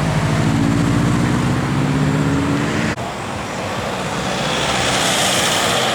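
Road traffic: a vehicle's engine runs close by, then after an abrupt break about three seconds in, the tyre noise of a passing vehicle swells and eases near the end.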